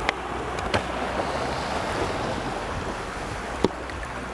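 Waves washing steadily onto a beach, with wind rumbling on the microphone. Three short sharp clicks come through: one at the start, one under a second in, and a louder one near the end.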